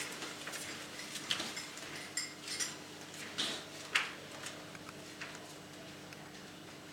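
Scattered light clicks and clinks, a few with a brief metallic ring, over a faint steady hum.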